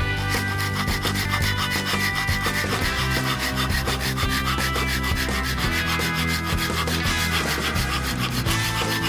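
Rapid, rhythmic scraping on wood, stroke after stroke with no break, over quiet background music.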